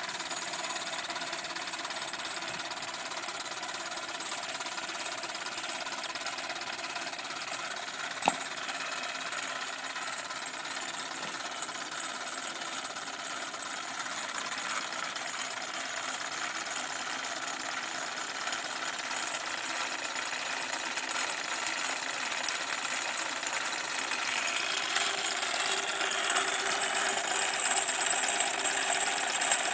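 Small live steam engine running and driving a belt-driven grain mill as it grinds grain: a steady, rapid mechanical chatter that grows louder near the end. One sharp click about eight seconds in.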